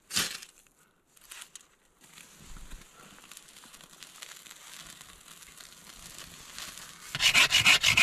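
A single sharp scrape of a ferro rod striking sparks, then a low steady hiss as the tinder and dry twigs catch fire. About seven seconds in, a folding saw starts cutting wood in rapid, even strokes.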